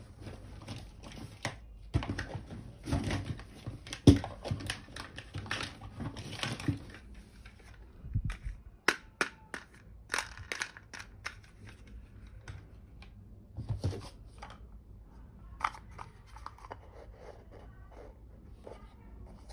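Plastic wrapping crinkling and tearing, with small plastic toy pieces clicking and tapping as they are handled; the crinkling is densest in the first half, then gives way to scattered clicks.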